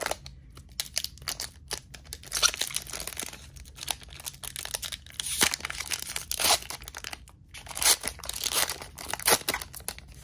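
Foil trading-card booster pack wrapper crinkling in the hands and being torn open, in a run of irregular crackles and rips with louder tears about two and a half and eight seconds in.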